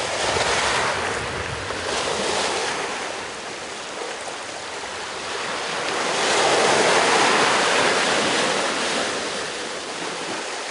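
Sea water washing in surges, a noisy rush that swells and eases, loudest about six to nine seconds in.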